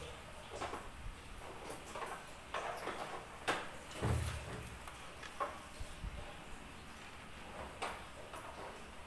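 Scattered clicks, knocks and scrapes of hands and tools working on the plastic body panels of a Honda Click 125i scooter, with a heavier dull thump about four seconds in.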